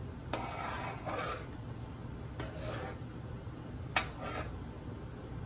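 Metal slotted spoon stirring rice into boiling broth in an aluminium pot: three sharp clinks of the spoon against the pot, each followed by a short swish through the liquid. A steady low hum runs underneath.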